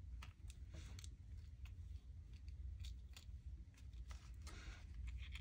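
Faint handling sounds of beads, thread and a paper playing card: scattered light clicks and short rustles, over a steady low hum.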